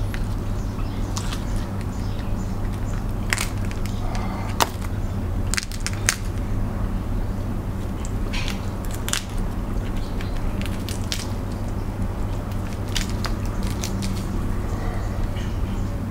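Cooked crab and shrimp shells cracking and snapping as they are pulled apart by hand, with wet, sauce-covered squishing and eating sounds between the cracks. A steady low hum runs underneath.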